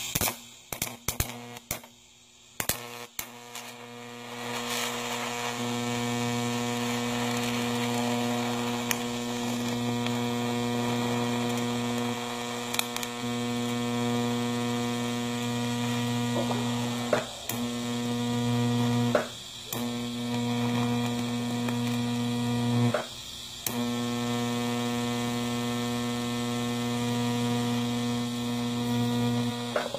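TIG welding arc on steel buzzing with a steady electric hum, after a run of sharp clicks in the first few seconds. The hum breaks off briefly twice, about two-thirds of the way through, then carries on.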